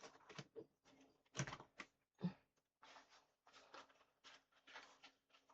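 Faint rustling and tapping of trading cards and their packaging being handled, with a couple of soft knocks about one and a half and two and a quarter seconds in.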